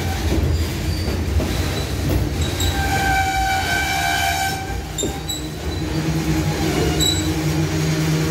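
Loaded freight hopper cars rolling past with a steady low rumble of wheels on rail. High-pitched wheel squeal rings out a few seconds in and briefly again later. A steady low drone comes in near the end.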